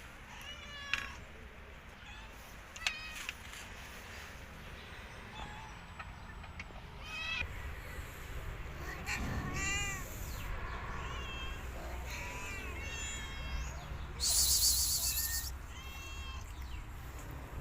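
Several cats meowing repeatedly, short calls that rise and fall in pitch, some overlapping at different pitches. About fourteen seconds in comes a loud burst of hissing noise lasting about a second.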